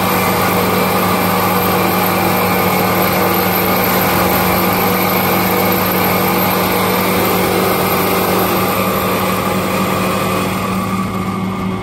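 Railway junior tamper running steadily: a constant mechanical hum with several steady tones, slightly duller near the end.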